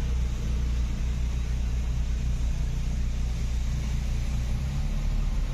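Honda CR-Z's 1.5-litre four-cylinder engine idling, a steady low hum heard inside the car's cabin.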